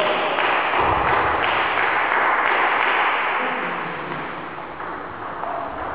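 Applause echoing in a sports hall, strong at first and dying away over the last couple of seconds.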